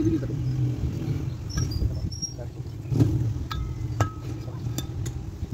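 Scattered sharp metallic clicks and knocks as a Massey Ferguson tractor's jack cylinder is handled and its piston rod worked by hand, the loudest about three seconds in, over a steady low rumble.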